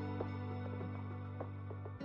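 Soft background music: long held chords with a few light plucked notes.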